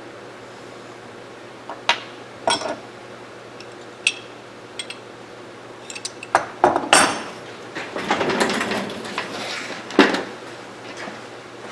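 Metal parts of a disassembled lever-action rifle clinking and clicking as they are handled and set down on a bench, scattered at first, then a cluster of knocks, a scraping rustle and one sharper knock near the end.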